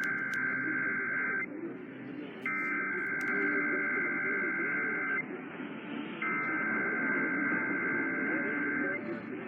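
Emergency Alert System SAME header: buzzing digital data tones sent three times, each burst about two and a half seconds long with about a second's gap, marking the start of an emergency alert sent over the radio.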